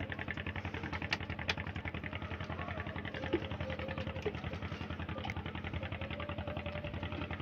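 Small boat's engine running with a steady, rapid chugging rhythm, with a few faint clicks over it.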